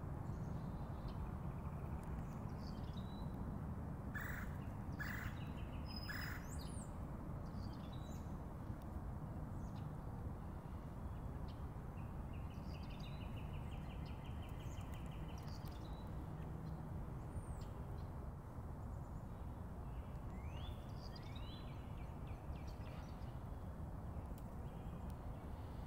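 Wild birds calling over a steady low rumble of outdoor background noise. Three sharp call notes come about four to six seconds in, a rapid, evenly spaced trill lasts about three seconds from around twelve seconds in, and a couple of short rising whistles come past the twenty-second mark.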